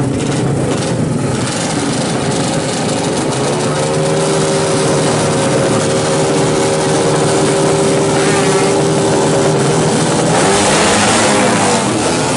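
Honda Supra drag bike's single-cylinder four-stroke engine, bored up to 200 cc with a big carburettor, running through a racing exhaust. It is held at a steady rev for several seconds, then revved up louder near the end as the bike pulls away.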